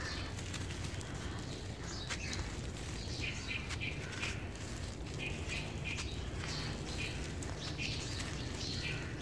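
Dry cement-and-charcoal cup crumbled by hand, its grit crackling and pouring as dust onto a powder pile. Birds chirp in short bursts every second or two in the background.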